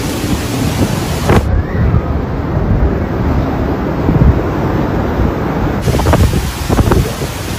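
Hurricane wind rushing and buffeting the phone microphone in a loud, continuous low rumble, with heavy surf breaking behind it.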